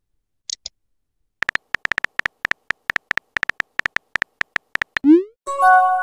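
Chat-app sound effects: a run of quick keyboard tap clicks, about eight a second, for some three seconds. Then comes a rising swoop and a short bright chord as the typed message is sent.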